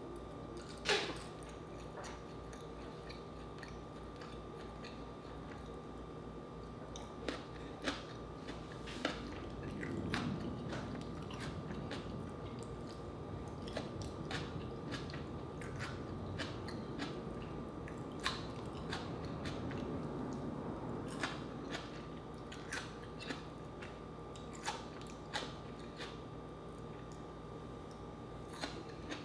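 Close-up chewing and biting of crispy deep-fried pork leg (crispy pata) and fried chicken, with sharp crunches scattered through and steadier chewing in the middle stretch.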